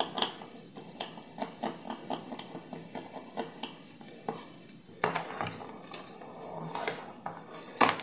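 Metal pick scraping the solder mask on a tablet's circuit board beside the USB-C port, a quick run of short scratches and ticks a few times a second. There is a sharper click near the end.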